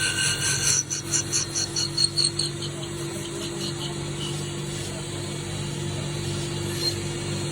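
Woodturning lathe's electric motor running steadily. In the first few seconds a quick series of short scraping strokes, about four a second, comes as a cutting tool is worked against the spinning wooden chess piece.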